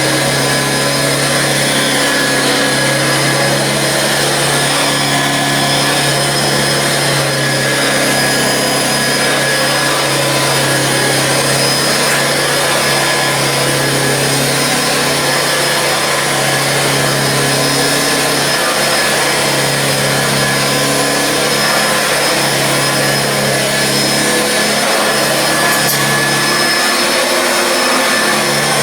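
1955 Hoover Junior 119 upright vacuum cleaner running steadily, its motor hum swelling and dipping slightly. It runs on a freshly fitted drive belt, which the owner describes as very quiet and nice and smooth.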